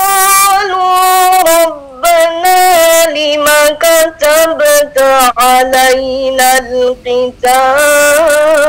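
A woman reciting the Qur'an in melodic tartil style: a solo chant of long held, wavering notes sung in phrases, with a brief breath about two seconds in, a run of shorter phrases in the middle, and a long held note near the end.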